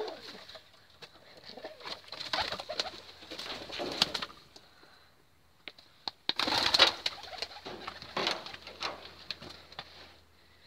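Domestic pigeons cooing, with a loud rustling burst about six seconds in.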